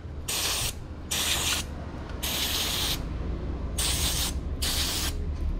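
Aerosol can of carburettor cleaner spraying in about five short hissing bursts, washing a motorcycle oil filter part.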